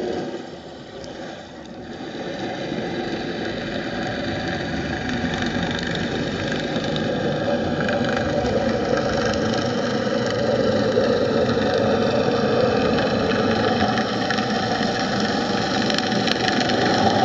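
Steady engine drone heard underwater, growing louder over the first few seconds and then holding level.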